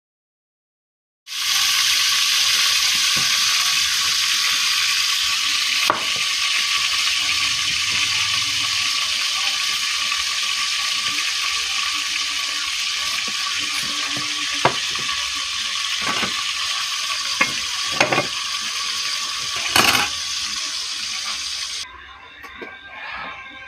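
A steady, loud hiss, like food sizzling, starts about a second in and drops away near the end. Over it come several sharp knocks of a cleaver chopping an onion on a wooden board.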